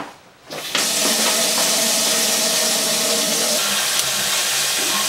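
Bathtub mixer tap turned on about a second in, then water running steadily from the spout into the tub as the bath fills.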